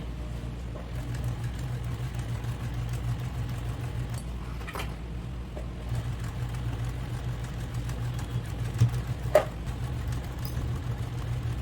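Electric sewing machine running steadily as it top stitches around the top edge of a lined tote bag, with a constant low hum. Two short sharp clicks come through, about halfway through and again near the end.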